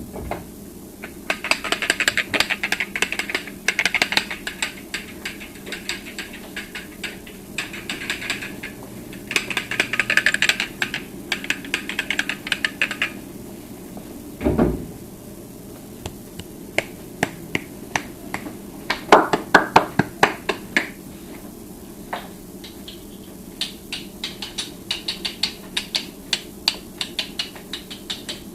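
A long run of sharp clicks and taps in dense clattering clusters, with a single low thump about halfway through and a burst of louder knocks soon after.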